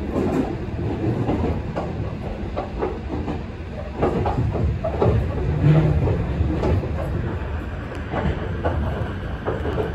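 Meitetsu local train running along the track, heard from inside the front car: a steady low rumble with irregular clacks of the wheels over rail joints, and a brief low hum a little past halfway.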